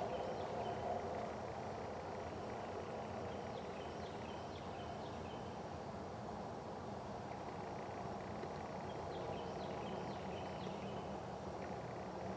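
Open-field ambience: a steady high insect drone with a few faint bird chirps scattered through it.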